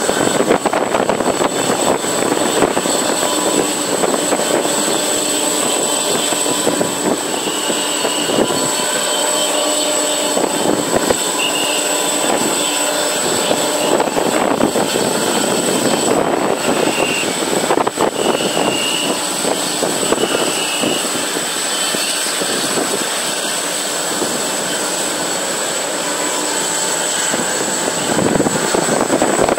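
Steady jet noise from a landing Boeing 777-200LR's two GE90 turbofans, heard at a distance as the airliner comes in, touches down and rolls out, with a thin steady high whine over it.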